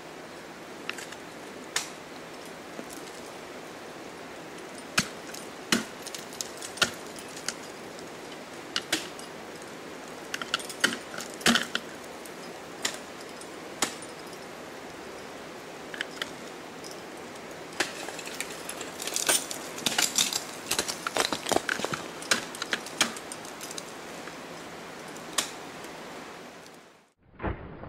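Ice axe picks and crampon front points striking and kicking into waterfall ice in sharp, irregular hits, with climbing hardware racked on the harness clinking and jangling. The hits come thickest about two-thirds of the way through, and the sound drops out just before the end.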